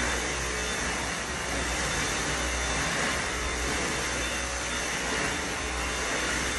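Stick vacuum cleaner running steadily as it is pushed back and forth over a hardwood floor.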